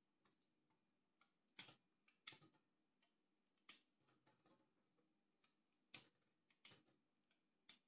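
Faint, irregular clicks and knocks of a knife cutting through raw carrots held in the hand, with carrot pieces dropping into a stainless-steel colander.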